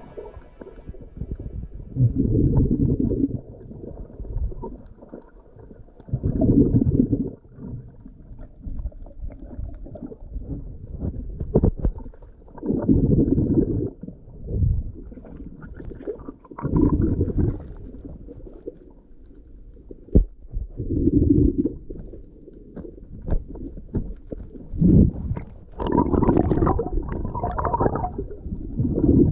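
Muffled, low gurgling water sounds that swell and fade every few seconds, typical of a waterproof camera in the sea during free diving.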